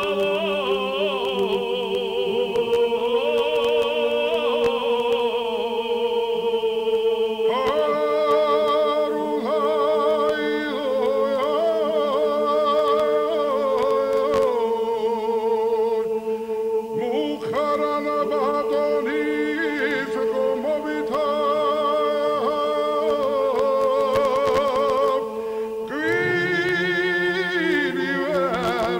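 Georgian men's choir singing polyphony: a low drone held steady under moving upper voices. A higher part enters with vibrato about a quarter of the way in, and near the end the voices move together to a new chord.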